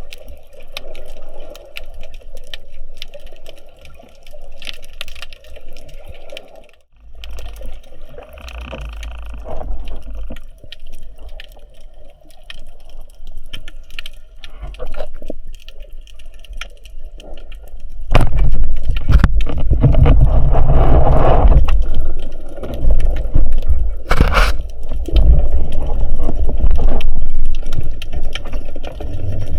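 Water sloshing and rushing with scattered clicks and crackles, picked up around a diver in the water. It grows much louder about 18 seconds in, in a spell of heavy water movement.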